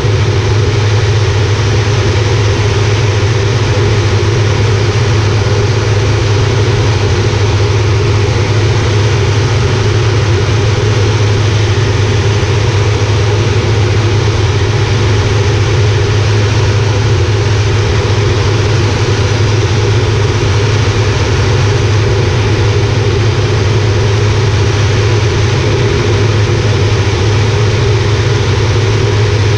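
Air Tractor 402B's turboprop engine and propeller running steadily in flight, heard from inside the open cockpit: a loud, even drone with a strong low tone under a wide rushing hiss.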